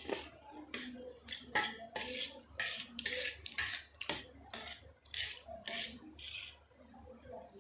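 Close-miked eating of spicy Maggi noodles: a quick run of short, wet mouth sounds, about three a second, which thins out after about six seconds.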